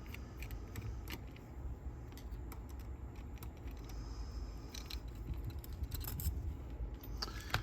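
Small screwdriver working screws out of a Sony TC-K890ES cassette deck's motor board: scattered light metallic clicks and ticks over a low steady hum.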